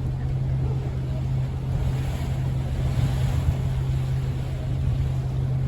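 Tour boat's engine running with a steady low hum, mixed with wind and water noise.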